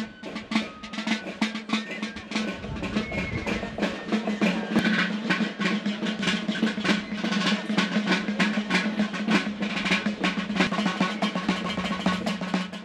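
Drum music: snare drums play fast, rolling strokes with bass drum beats, over a steady low note.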